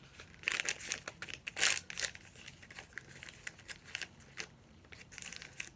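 Thin plastic wrapping of a miniature toy crinkling as it is handled and pulled open, densest from about half a second to two seconds in, then a few scattered light crackles and clicks.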